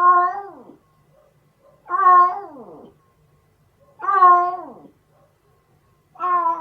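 Domestic cat meowing repeatedly, one meow about every two seconds, each holding its pitch and then sliding down at the end; the fourth begins near the end.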